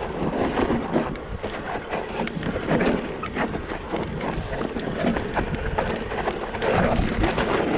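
Electric mountain bike rolling down a loose, rocky trail: tyres crunching over rocks and the bike's frame and chain rattling, with many sharp clicks and knocks over a steady rumble.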